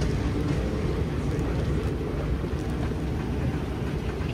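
Steady low rumble and hiss of a large airport terminal's background noise, heard while riding a moving walkway.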